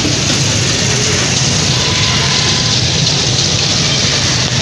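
Hot oil in a deep fryer sizzling steadily, over a steady low hum.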